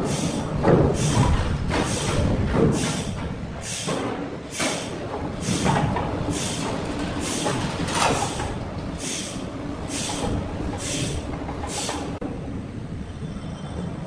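A hoist lifting a heavy log out of a shipping container: a steady low mechanical rumble with a hissing pulse repeating a little more than once a second. The pulses stop about twelve seconds in, leaving the rumble and a faint high whine.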